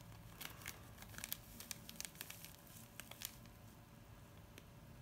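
Small clear plastic zip-lock bag of glitter crinkling faintly as fingers handle and squeeze it open, a run of small crackles over the first three seconds, then quieter.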